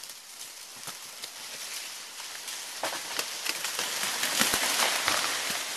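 A palm tree falling after being pushed over by hand, its fronds and the brush it tears through rustling and crackling with many small snaps. The noise builds steadily, is loudest about four and a half seconds in as it comes down, then fades.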